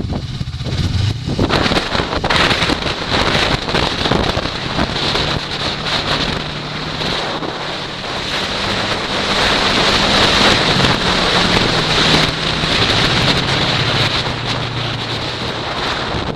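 Snowmobile engine running steadily, its pitch rising a little around the middle and dropping back after, under heavy wind noise buffeting the microphone.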